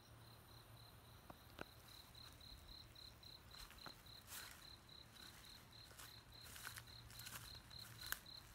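Faint insect chirping: a steady high-pitched pulse repeating about five times a second, with a few scattered soft clicks and rustles.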